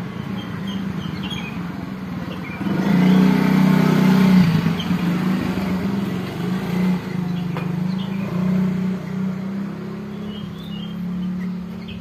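Motorcycle engine running close by, growing louder about three seconds in and then running steadily.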